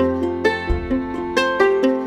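Background music: a quick melody of plucked-string notes over a low bass note.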